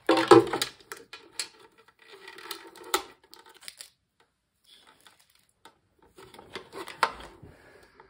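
Ninja coffee maker's removable clear plastic water reservoir being handled and fitted against the machine's body: hollow plastic knocks and clicks with some rubbing, the loudest knock right at the start and another sharp one about seven seconds in.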